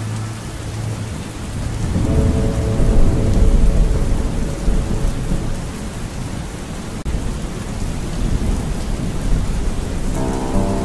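Steady heavy rain with a long roll of thunder that builds about two seconds in, is loudest around three to four seconds and slowly dies away.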